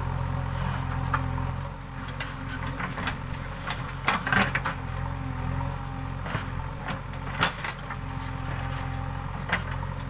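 JCB 3DX backhoe loader's diesel engine running steadily under load as the backhoe arm digs, its note dropping a little about two seconds in. Several sharp knocks come from the working arm and bucket, the loudest a cluster about four seconds in.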